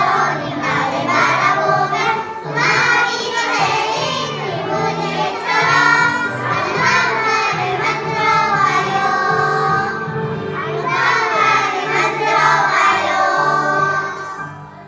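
A group of young children singing a song together in unison over a musical accompaniment, fading out near the end.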